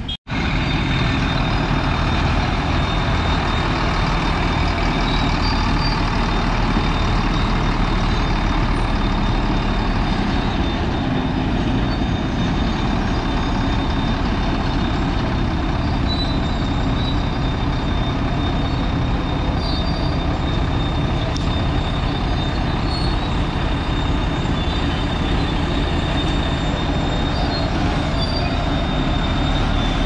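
Steady engine and road noise from a running motor vehicle, with a constant high whine; it comes in after a brief dropout at the very start.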